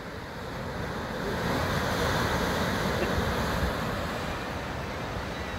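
Sea surf breaking and washing against the rocks at the foot of a sea cliff, swelling to its loudest about two seconds in and then slowly easing, with wind rumbling on the microphone.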